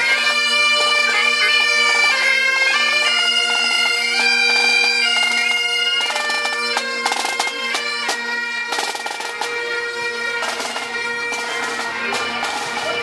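Bagpipes playing a tune over a steady, unbroken drone.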